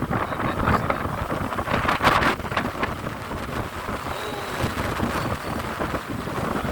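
Wind buffeting the microphone over the rush of a moving boat and the water around it, with a louder surge about two seconds in.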